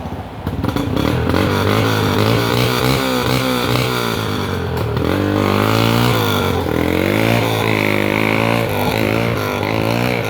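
Dirt bike engine revving up and down repeatedly, its pitch rising and falling in quick swells, starting about half a second in.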